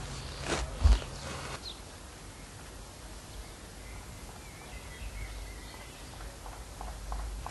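A spade scraping and chopping into turf and soil, a few strokes with a dull thump about a second in. Then steady outdoor background with a faint bird call midway.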